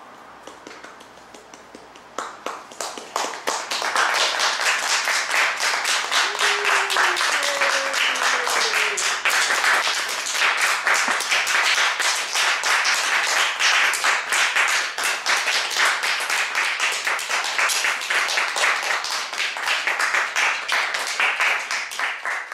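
Audience applauding. A few claps come about two seconds in, swelling to full, steady applause by about four seconds.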